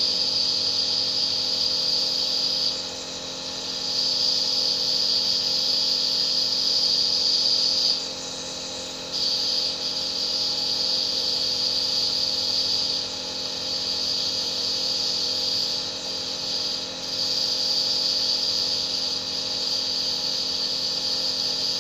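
Compressor nebulizer running: a steady motor hum under a loud high hiss that drops away briefly several times.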